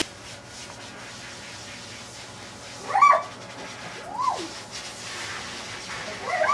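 A dog whining in short cries that rise and fall in pitch: one about three seconds in, another a second later, and several more near the end. It is protesting at being blow-dried.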